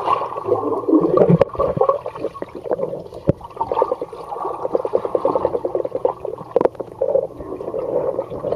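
Underwater pool sound heard through a waterproof camera held below the surface: muffled gurgling and dense crackling of water and bubbles stirred by a swimmer, with a few sharper clicks.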